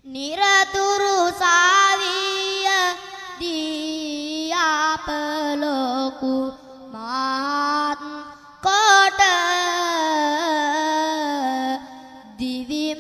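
A young boy monk's solo voice singing kavi bana, Sinhala Buddhist verse, in long drawn-out melodic phrases with ornamented wavering turns. There are short breaks for breath between the phrases.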